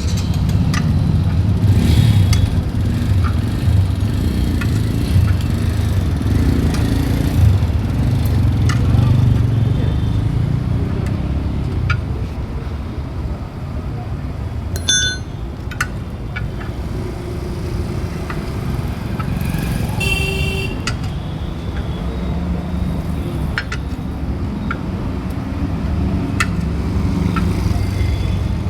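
Steady road-traffic rumble with scattered sharp metallic clinks, and one ringing metal strike about fifteen seconds in, from a hammer and chisel working a bus tyre's bead off its steel rim. A short pitched tone sounds about twenty seconds in.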